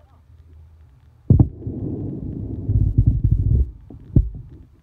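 Low, irregular rumbling buffeting on the microphone, starting suddenly with a knock about a second in and lasting about two seconds, followed by a single thump near the end.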